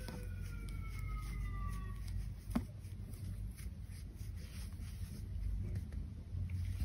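Soft scratching and faint clicks of a metal crochet hook drawing yarn through stitches, with one sharper click a little over two seconds in, over a low steady hum. A faint, slightly falling whine fades out in the first two seconds.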